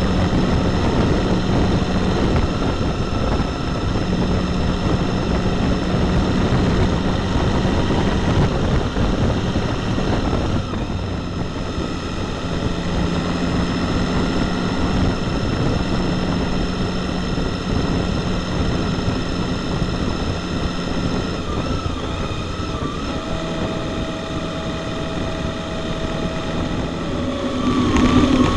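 Riding sound recorded on a Honda Gold Wing touring motorcycle: steady engine drone at cruising speed under continuous wind rush.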